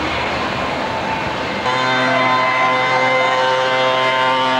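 Wind noise on the camcorder microphone, then, after a cut about a second and a half in, a steady engine drone holding one unchanging pitch.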